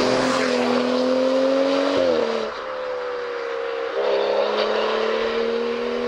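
BMW M235i's turbocharged straight-six with an Armytrix aftermarket exhaust, accelerating hard through the gears. Engine pitch climbs steadily in each gear and drops sharply at upshifts about two and four seconds in.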